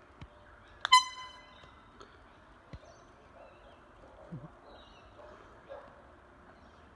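One short, loud blast of an air horn about a second in, a bright tone with strong overtones that dies away quickly; a few faint clicks in the quiet outdoor background after it.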